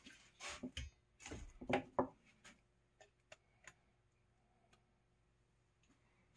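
Light clicks and small knocks of pliers working at the cut corner of an aluminum screen-window frame, breaking out a hacksawed piece of the frame: a quick cluster in the first two seconds, then a few single ticks.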